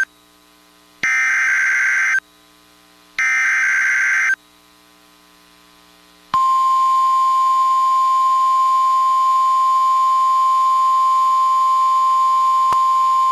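Emergency Alert System SAME data bursts on NOAA Weather Radio: the tail of one harsh digital screech, then two more, each about a second long and a second apart. About six seconds in, the steady 1050 Hz weather radio warning alarm tone begins and holds, signalling the start of a new warning.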